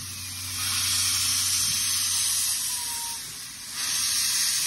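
Steam locomotive's cylinder drain cocks blowing off steam as it starts away with its train, a loud hiss in two long blasts: one of about two and a half seconds, then after a brief dip another of about a second that cuts off sharply.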